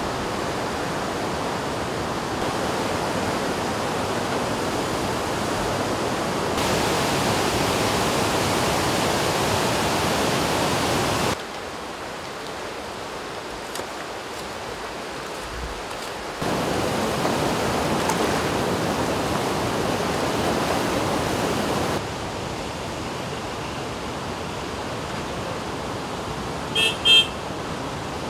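Steady rushing noise of a swollen, silt-laden river in flood, stepping up and down in level every few seconds. Near the end come two short toots of a vehicle horn.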